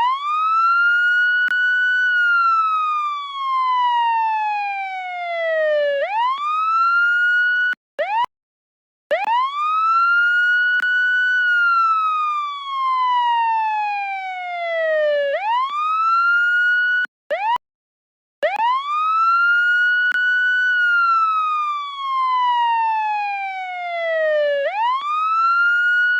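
Police siren wailing: the tone climbs quickly to a high pitch over a second or two, then slides slowly down over about four seconds and climbs again. The sweep repeats about three times, broken twice by a second-long gap of silence.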